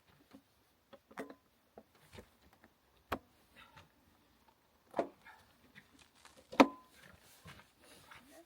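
A string of scattered knocks and clicks, as of objects being handled and set down, with the loudest knock about six and a half seconds in.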